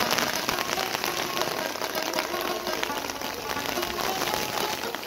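Steady rain: a dense, even patter of drops.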